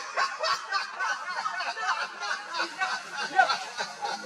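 Macaques calling: a quick, continuous run of short squeaks and chirps.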